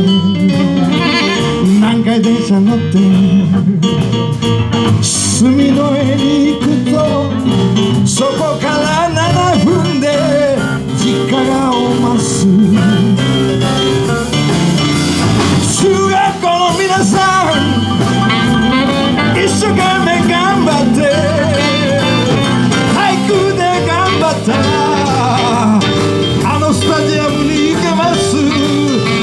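Live blues band playing a blues in G: electric bass, electric guitar and drum kit, with a melody line over them.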